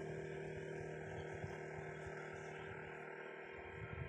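Steady low engine hum, slowly fading, with a few faint low thumps near the end.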